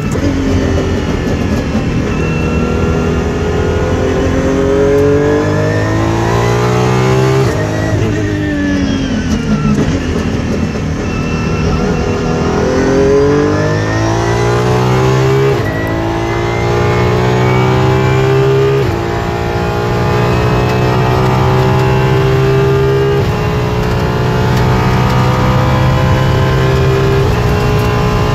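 Apollo Intensa Emozione's naturally aspirated V12 engine heard from inside the cabin at track speed. The revs fall and climb again twice, then run high with several quick gear changes.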